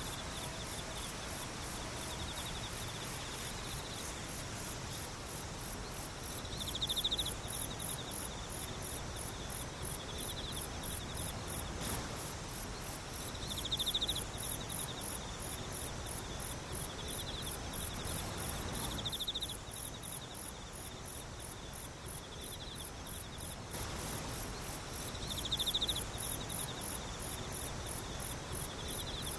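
Night insects calling. A very high-pitched chirp repeats evenly about three times a second and grows louder about six seconds in. Under it runs a lower, steady trill that swells every few seconds.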